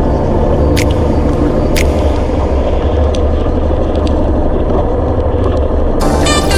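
Small outrigger fishing boat's engine running steadily, with a burst of higher tones coming in near the end.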